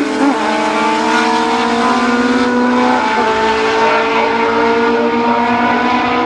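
Historic Chevron B16 sports-racing car accelerating hard with another racing car alongside, its engine note piercing and climbing steadily in pitch. It drops briefly at upshifts about a third of a second in and again about three seconds in.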